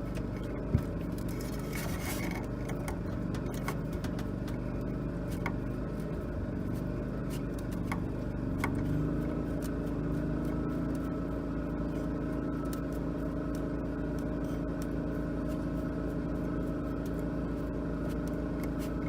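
Steady machine hum, with a deeper even tone settling in about nine seconds in. A sharp click under a second in and a few faint clicks and scrapes from hand tools working the clamp on the furnace's combustion-air wheel.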